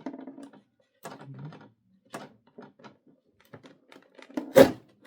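Plastic and cardboard action-figure packaging being handled and pried open: irregular small clicks and crackles, with one loud sharp knock near the end.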